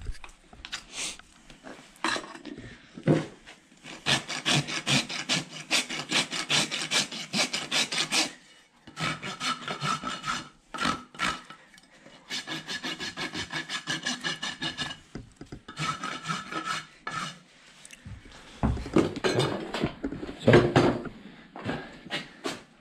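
Steel hoof rasp filed across a horse's hoof in fast, even strokes, in runs of a few seconds with short pauses, dressing the hoof at the end of a trim. Near the end the rasping stops and a few louder, deeper thumps follow.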